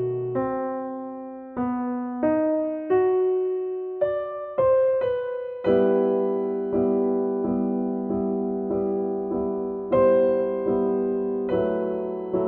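Background music: slow, gentle piano, one note or chord at a time, each struck and left to fade.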